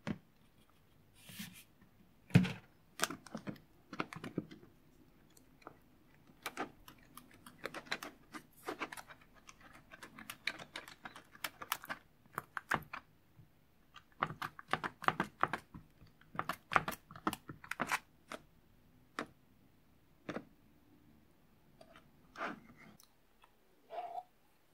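Silicone spatula stirring thick, wet slime in a plastic tub, giving irregular sticky clicks and pops in quick runs with short pauses.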